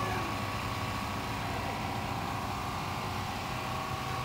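Rock-crawler buggy's engine running steadily while the buggy works its way up a steep boulder.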